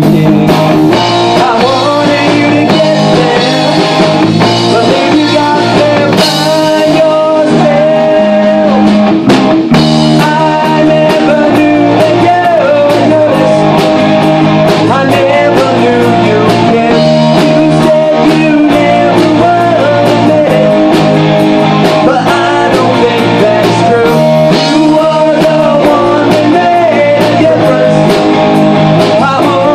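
Loud live rock band playing an original song: electric guitar, bass guitar and drum kit, with a voice singing over them.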